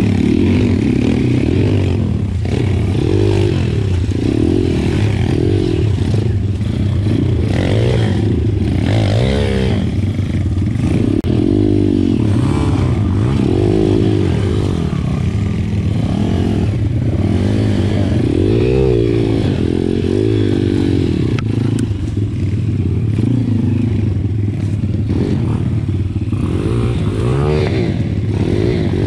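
Pit bike engine revving up and falling back again and again as the bike is ridden off-road.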